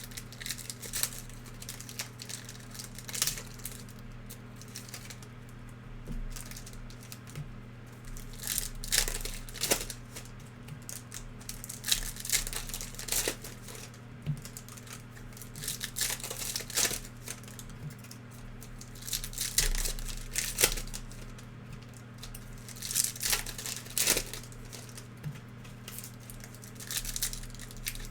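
Trading-card pack wrappers from 2021-22 Panini NBA Hoops hobby boxes crinkling and tearing open in repeated irregular bursts, as packs are ripped and the cards handled, over a steady low hum.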